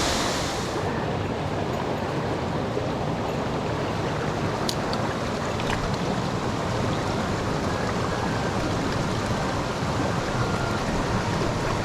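Steady rush of a mountain headwater stream's flowing water.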